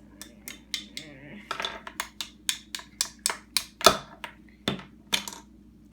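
Plastic toy tool parts clicking and knocking together in a quick, uneven series of sharp taps as a toy drill is put together, with one louder knock about two thirds of the way through.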